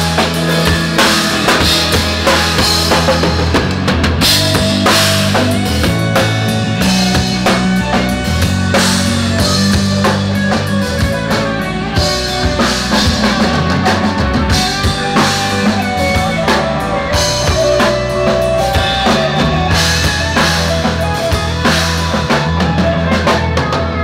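Rock band playing through the stage PA during a sound check: a full drum kit with kick, snare and cymbals, over a bass guitar holding long low notes.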